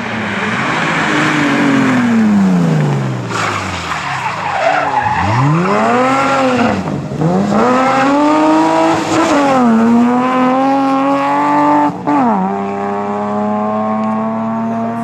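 Classic BMW E21 3 Series rally car: the engine revs drop as it slows for a corner, then rise and fall sharply several times with throttle blips and bursts of power while the tyres skid through the turn. Near the end a quick gear change is followed by steadily climbing revs as it accelerates away.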